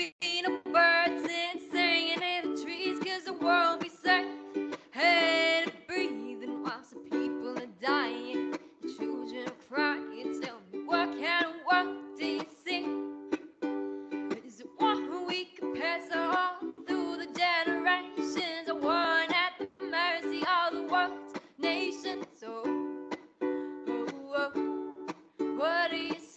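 A song: a solo voice singing over steady, evenly pulsed strummed chords.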